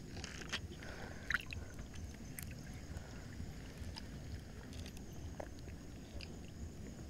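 Water sloshing and gurgling around the spearfisher as he moves through the river, over a steady low rumble, with a few faint clicks and taps scattered through it.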